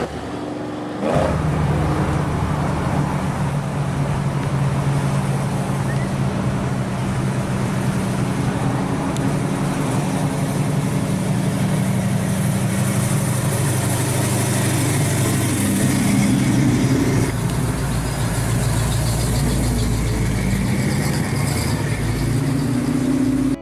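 Classic car engines running as the cars drive by and pull away, a steady low engine note heard through a few short clips in turn.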